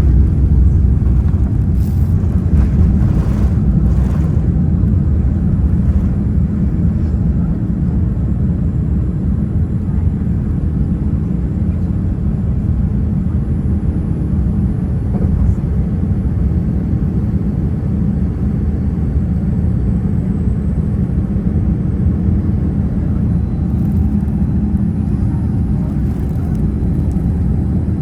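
Steady low rumble inside the cabin of a Boeing 787-10 airliner in flight: engine and airflow noise heard from a window seat in economy.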